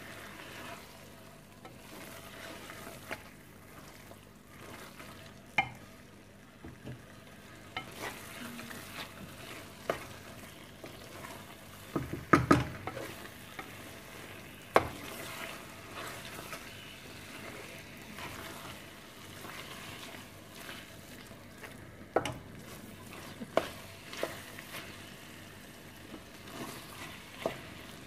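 A wooden spatula stirring thick spinach-and-chicken curry in a metal pan, with a faint steady sizzle and now and then a sharp knock or scrape of the spatula against the pan. The loudest knocks come about twelve and fifteen seconds in.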